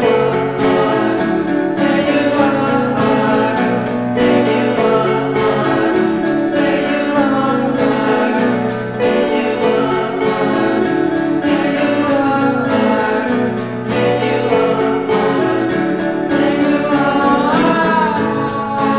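A song: singing over guitar, with the sung line "Take you on, on... There you are, are..."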